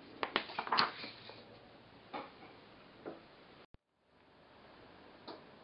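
Fingertip taps on a wooden tabletop: a quick cluster of taps within the first second, then a few single taps a second or two apart. Midway the sound drops out to a moment of dead silence.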